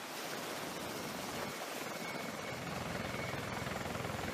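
Rotorcraft running: a steady rushing noise of turbines and air, with the even beat of turning rotor blades coming in clearer in the second half.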